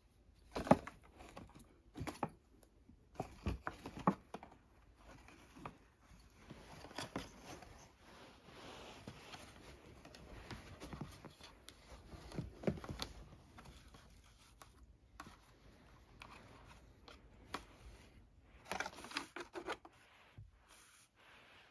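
A cat pawing and scrabbling at a thin cardboard tissue box and a fluffy teaser poked through its holes. Scratchy rustling of paws on cardboard and cloth runs throughout, with sharp taps and knocks as the box is batted, loudest about a second in and in a quick cluster near the end.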